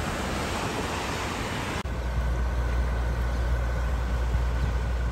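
Rushing floodwater of a swollen river, an even hiss. About two seconds in it gives way abruptly to a louder, steady low rumble with a faint steady high tone.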